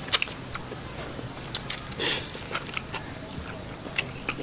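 Close-up eating sounds of chicken feet being eaten by hand: scattered wet lip smacks and chewing clicks, with a short sucking burst about two seconds in.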